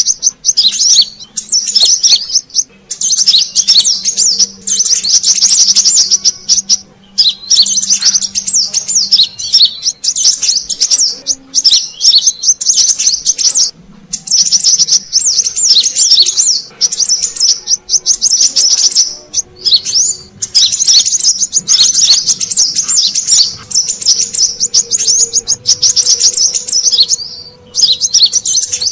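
Brown-throated sunbird (kolibri kelapa) calling: rapid, high twittering chirps in bouts of a few seconds with short breaks, a recording played as a lure for wild birds.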